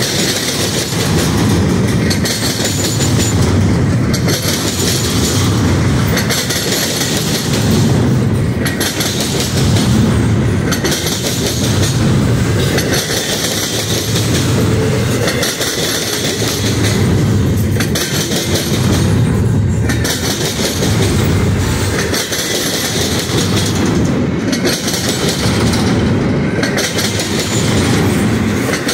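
Double-stack intermodal freight cars rolling past on steel wheels: a loud, continuous rumble on the rails that swells and fades every couple of seconds as each car's wheel sets go by.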